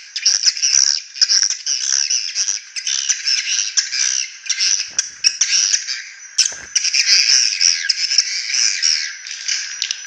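Swiftlet lure recording: dense, unbroken chattering and twittering of an edible-nest swiftlet colony. It is a harsh, rough 'call, pull and roost' sound meant to draw swiftlets into a nest house and make them stay.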